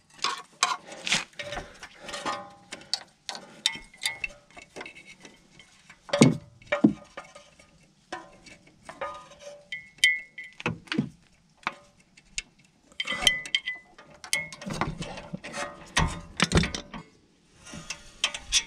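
Ratchet wrench clicking and metal tools clinking while the bolts of a car's rear brake caliper are undone. The clicks come in irregular bursts with short pauses, and a metal part rings briefly a couple of times.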